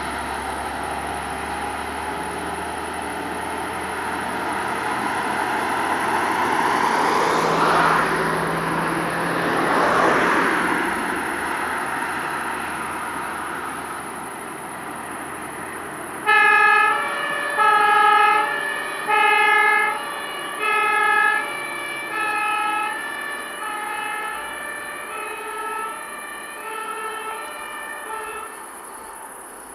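Two cars pass close by, then about sixteen seconds in a German two-tone fire-service horn (Martinshorn) starts on the departing fire crane. It alternates between two notes about every three-quarters of a second and fades as the vehicle moves away.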